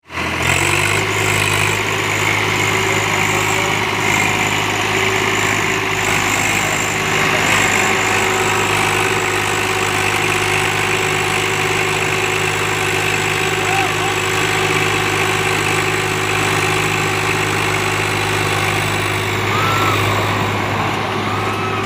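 Swaraj 744XT tractor's diesel engine running at a steady pitch while hauling a loaded trolley through deep mud.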